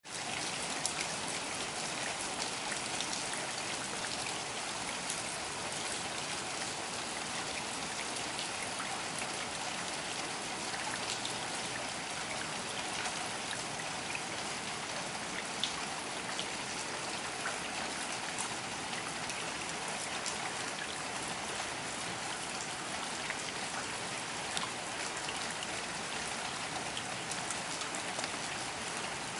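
Steady rain falling, an even hiss with many scattered sharper ticks of single drops.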